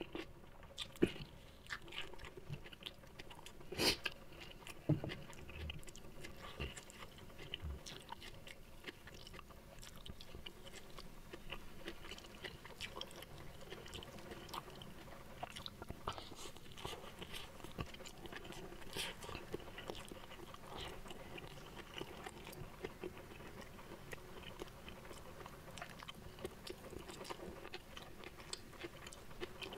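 A person chewing mouthfuls of food, with many small irregular clicks and crunches throughout; a sharper click comes about four seconds in.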